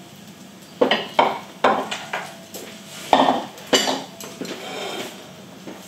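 Cooking utensils clattering and clinking against pans and dishes, in several separate knocks while the food is handled.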